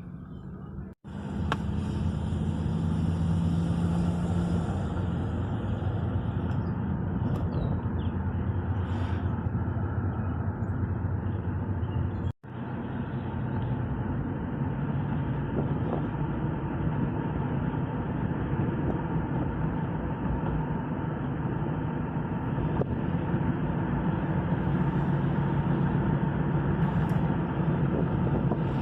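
A motor vehicle running steadily, a constant engine hum and road noise, cutting out sharply twice, about a second in and about twelve seconds in.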